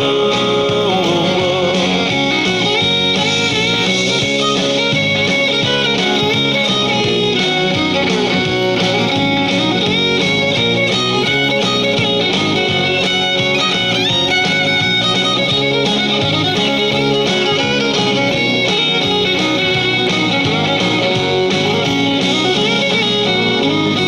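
Instrumental break of a recorded country song, with a guitar playing the lead over the band and no singing.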